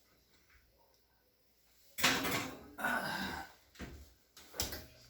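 Oven door being opened and a baking dish pushed in, with a loud scraping clatter about two seconds in and the door shutting with a knock near the end.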